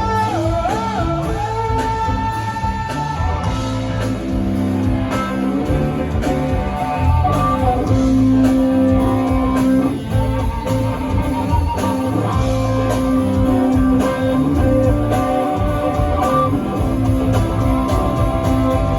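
Live band music: an electric guitar plays a lead line with vibrato over steady bass and drums.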